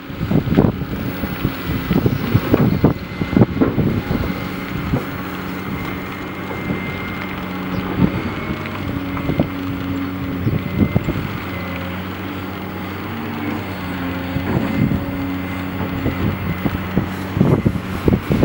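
Quarry machinery running: a diesel engine note that steps up and down in pitch over the steady din of a stone crushing and screening plant, with knocks and clatter of rock, thickest in the first few seconds.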